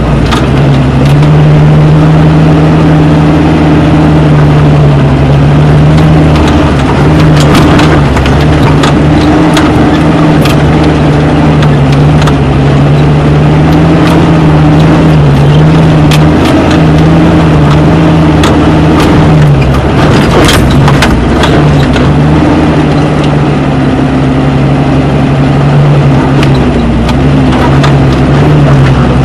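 Off-road vehicle's engine running steadily at low speed on a dirt trail, heard from inside the cabin, its pitch wavering slightly. Scattered clicks and knocks from the vehicle come through over the engine, in clusters.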